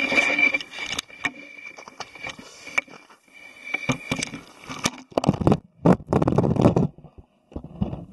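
Scraping and knocking against ice and slush at the edge of an ice-fishing hole, then water sloshing in the hole, heard close and muffled.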